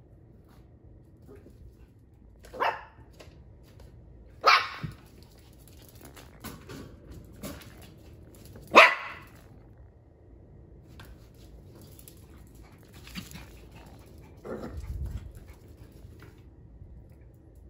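A small dog barking: three sharp single barks, the second and third loudest, about two and four seconds apart, with fainter yips between.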